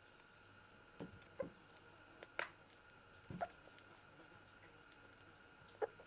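Young red squirrel eating soft, mushy food: faint wet squishing and smacking clicks that come singly every second or so.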